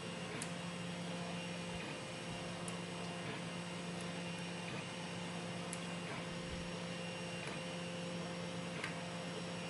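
3D printer running, a steady mechanical hum of its stepper motors with a few faint ticks from a lock being picked.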